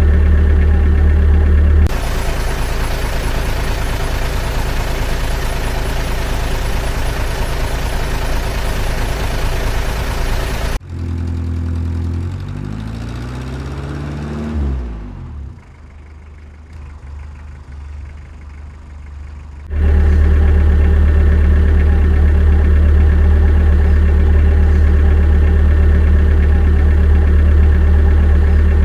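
Engine sound of RC construction machinery: a steady low idling hum, then a rougher, noisier running from about two seconds in. Around the middle the sound drops and its pitch slides down as if an engine is winding down, stays quieter for a few seconds, then the steady hum comes back abruptly.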